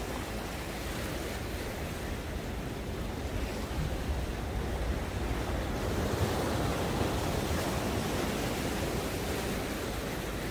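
Rough sea surf washing and breaking among the concrete tetrapods of a breakwater, a continuous rushing that swells a little louder in the middle.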